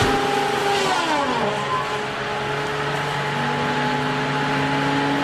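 A tree-cutting machine's engine and saw drive running, with a pitch that drops about a second in and then rises slowly in the second half.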